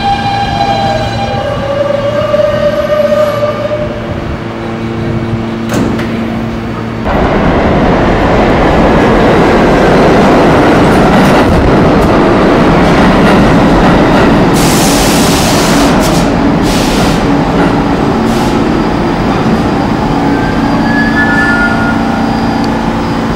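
New York City subway train moving along the platform: an electric motor whine with tones, one falling in pitch, then from about seven seconds a loud steady rumble of wheels on track. A short hiss comes about two-thirds through, and a brief high squeal near the end.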